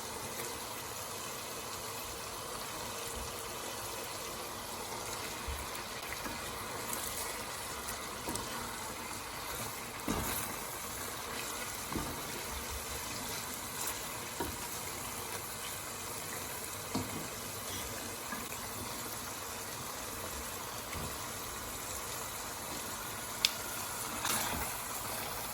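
Onion, yogurt and spice masala sizzling and bubbling in a pot on the stove as raw chicken thigh pieces are added one at a time, with a few soft knocks and taps from the pot and spoon.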